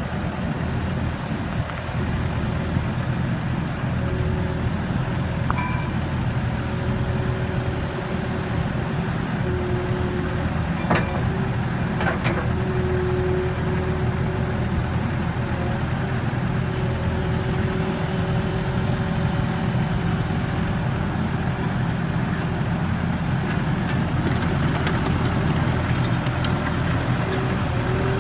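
Terex skid steer's engine running steadily, with two sharp clicks a little before the middle.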